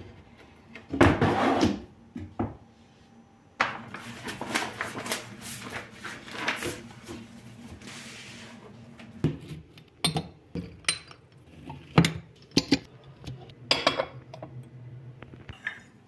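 Kitchen cupboard work: scraping and rustling against a cabinet shelf, then a run of sharp clinks as porcelain cups and saucers are picked up and set against one another and the glassware.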